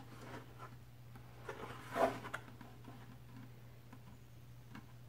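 Plastic 5-gallon bucket fitted with a 3D-printed cyclone inlet being handled and turned over in the hands: scattered faint rubs and taps, with one louder bump about two seconds in.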